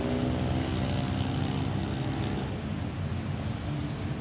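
Motor vehicle engine running with a steady hum and a low rumble. The hum fades about halfway through while the rumble goes on.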